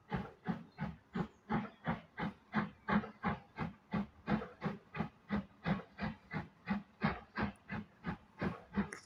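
Steam locomotive exhaust beats from a train working along the line, a steady rhythmic chuffing of about three beats a second.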